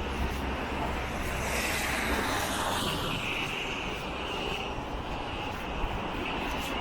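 Storm wind roaring across the microphone, a steady rushing noise with heavy low buffeting that eases about two seconds in.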